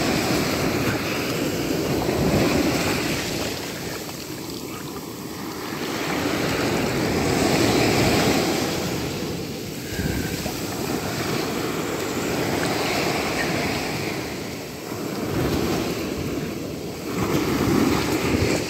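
Small waves breaking and washing up over a sandy beach, a steady surf sound that swells and fades every few seconds.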